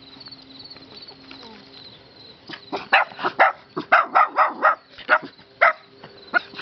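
A dog barking: a quick run of short barks starting about two and a half seconds in, then a few single barks spaced apart near the end, over a faint steady hum.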